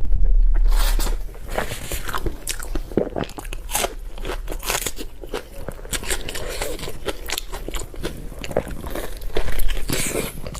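Close-miked eating of offal balls: crunchy biting and chewing, a rapid run of short crisp crunches. A loud low thud fills the first second.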